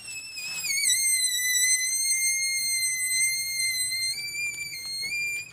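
Air squealing out of a balloon's stretched neck: one long, high-pitched squeal. It wavers and drops in pitch in the first second, holds steady, then steps up slightly twice near the end before cutting off suddenly.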